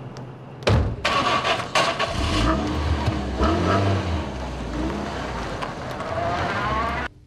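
Toyota Corolla sedan's door shutting about a second in, then its engine revving as the car pulls away, the pitch rising and falling. The sound cuts off suddenly near the end.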